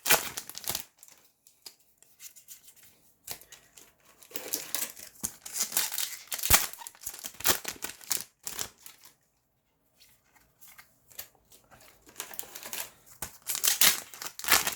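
Foil Yu-Gi-Oh booster pack wrappers being torn open and crinkled, with cards handled and slid by hand, in irregular bursts with short pauses.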